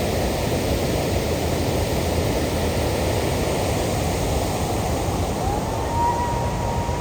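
Waterfall's steady rush of falling water. Near the end a thin whistle-like tone rises and then holds over the water noise.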